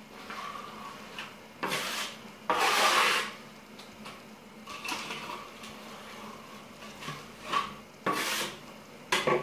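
Plastering trowel scraping across wet plaster on a wall and across the hawk board, in a string of separate rasping strokes, the loudest about three seconds in.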